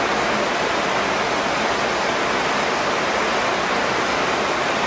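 A loud, even hiss of steady noise.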